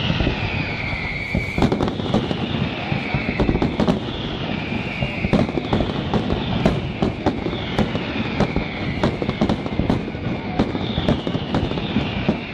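Aerial fireworks display: shells bursting in a rapid, dense series of sharp bangs. A high falling whistle comes back every second or two.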